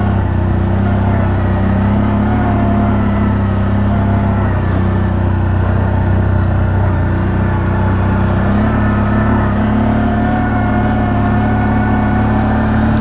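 Quad bike (ATV) engine running steadily while riding along, its pitch rising and falling slightly.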